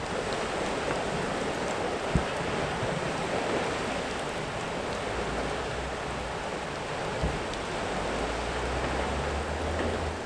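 Water rushing and splashing out through a canal lock's gates into the pound below, a steady churning rush. Two brief low thumps break in, about two and seven seconds in.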